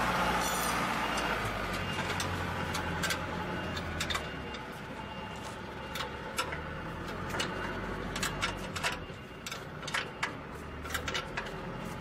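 Scattered sharp metal clicks and taps from hand work on the reaper's belt-drive bracket, over a steady low engine hum. A louder rushing noise fades out in the first second.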